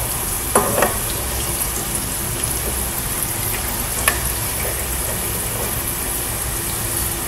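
French fries deep-frying in hot oil in a pan, a steady sizzle, with a few light clicks of the utensil against the pan as the fries are stirred: about half a second in, near one second, and about four seconds in.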